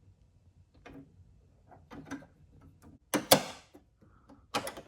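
Light clicks and taps from the door-latch linkage inside a C3 Corvette door being handled, with a louder cluster of sharp clicks about three seconds in. The linkage rod is unhooked.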